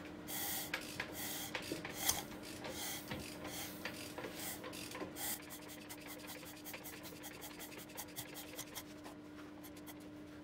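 A Golf R32 Mk5's 3.2 VR6 engine, with new timing chains fitted, being turned over slowly by hand with a wrench on the crankshaft. There are rasping strokes at first, then a run of quick ticks in the second half. It turns easily, with nothing interfering.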